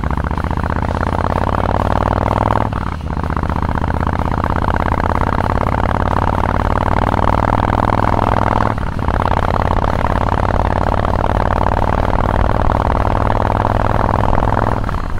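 Honda VT1300's V-twin running through Cobra 3-inch slip-on mufflers, accelerating hard under load through the gears. The exhaust note climbs in pitch, drops briefly at an upshift about three seconds in and again about nine seconds in, then climbs again until a third shift near the end.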